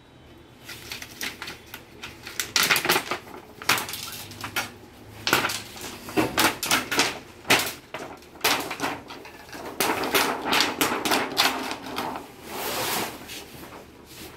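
Irregular clicking and clattering of LED TV backlight parts being handled and taken apart by hand, a quick run of sharp knocks that comes in clusters.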